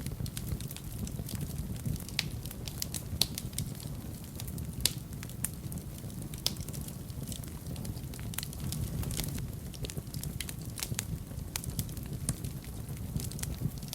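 Fire burning in a fireplace: a steady low rumble of flames with frequent, irregular crackles and pops.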